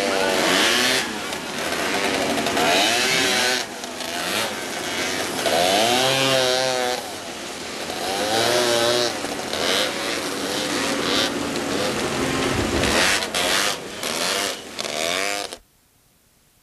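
Several Honda Odyssey and Pilot off-road buggy engines racing, revving up and down over and over as the buggies pass. The sound cuts off suddenly near the end.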